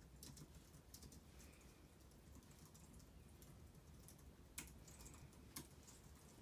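Faint typing on a computer keyboard: irregular key clicks, with two sharper taps in the second half.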